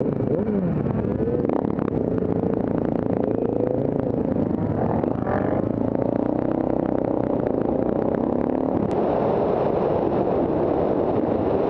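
Motorcycle engine running under way, its pitch rising and falling as the rider accelerates and changes speed, heard from on the bike with wind rushing over the microphone.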